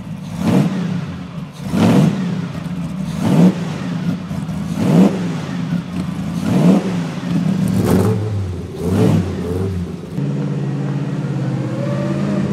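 Alfa Romeo 8C vintage racing car's straight-eight engine being driven hard, its revs rising and falling sharply about every second and a half. About ten seconds in it settles into a steadier running note.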